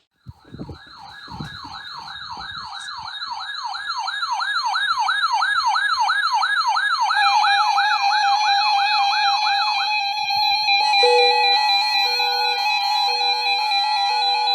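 Several NOAA weather alert radios sounding their alarms together for a test tornado warning. One gives a warbling siren about three sweeps a second that grows louder over the first few seconds. Others join with steady alarm tones, and from about eleven seconds a pulsing beep pattern sounds over them.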